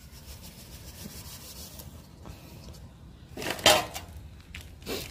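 Fine ground fish meal pouring from a steel bowl into a large steel basin of roasted seeds and beans: a soft, grainy hiss through the first couple of seconds, with a louder brief scrape about three and a half seconds in.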